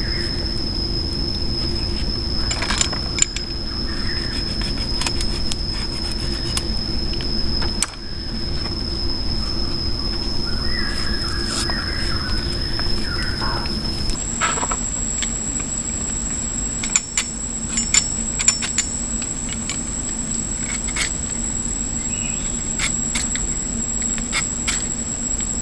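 Steady high-pitched insect drone of tropical forest cicadas, stepping up to a higher pitch about halfway through. Scattered sharp clicks of green bamboo sticks being handled and lashed into a mat.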